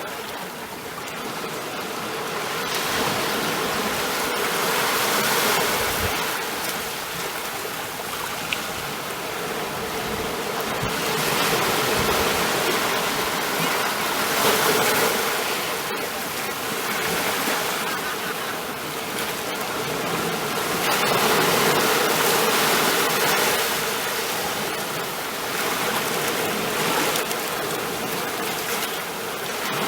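Ocean waves washing in, a continuous rush of surf that swells and eases every several seconds.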